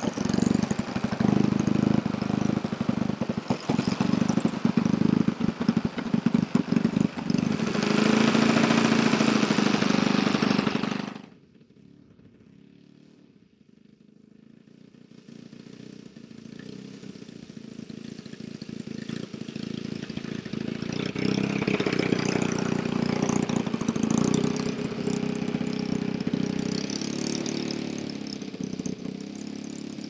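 Engine of a radio-controlled scale Junkers Ju 87 Stuka model running up close with a rapid pulsing beat, louder and higher for a few seconds before it cuts off abruptly about eleven seconds in. The engine then comes back faintly and grows steadily louder as the model draws nearer, easing off slightly near the end.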